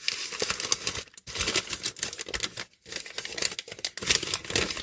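Packaging crinkling and crackling as a small ceramic pot is unwrapped by hand, in three spells with short breaks about a second in and near three seconds in.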